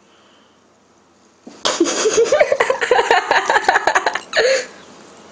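Women laughing loudly in quick, pulsing bursts for about three seconds, starting about a second and a half in, with one last short laugh near the end.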